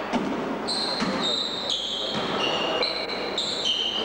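Basketball shoes squeaking on a gym floor in a quick run of short high squeaks at shifting pitches, with a basketball bouncing.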